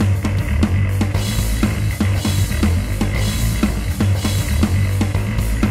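Rock music with a drum kit, bass and guitar, playing a fast, steady beat.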